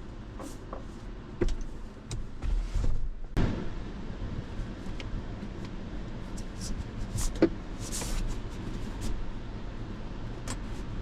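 Rear seat of a Toyota 4Runner being folded down: a run of latch clicks and clunks as the seatback is released and laid flat, with a short rustle of handling.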